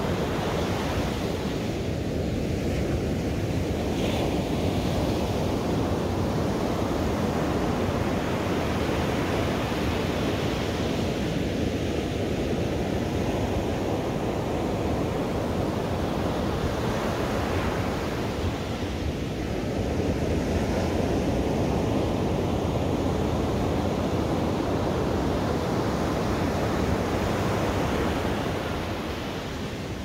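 Ocean surf: a continuous rush of breaking waves washing ashore, swelling and easing every several seconds.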